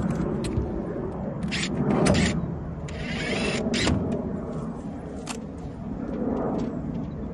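Clicks and knocks of a polycarbonate sheet and the greenhouse's metal frame being handled as the sheet is fitted, with a short hissy burst about three seconds in, over a steady low outdoor rumble.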